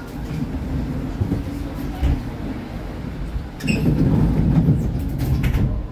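A 1981 LHB GT6 articulated tram with B4 trailer running, heard on board: a steady low rumble of motors and wheels on the rails. About three and a half seconds in there is a sharp click with a brief high ring, and the rumble grows louder after it, with scattered clicks.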